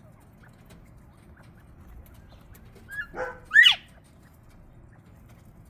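A short, high animal call about three and a half seconds in, sliding quickly in pitch, with a softer call just before it.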